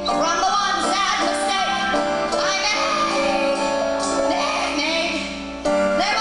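A singer's voice over instrumental accompaniment, the melody gliding up and down, with a sudden jump in level about five and a half seconds in.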